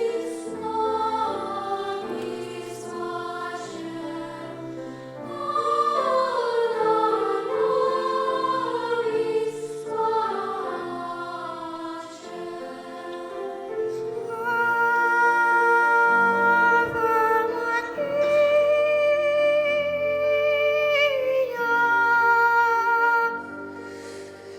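A choir singing a slow piece in long held notes, swelling louder several times.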